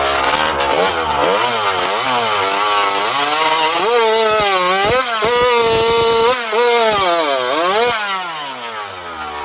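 Two-stroke racing chainsaw with an expansion-pipe exhaust, at full throttle cutting through a log. Its pitch swings up and down over and over as the chain bogs in the cut and frees again, holds high briefly about six seconds in, then drops and fades near the end.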